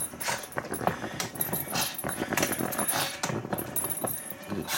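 A small dog being rubbed in a basket full of clothes: irregular rustling and scratching of fabric as the hand and the dog move.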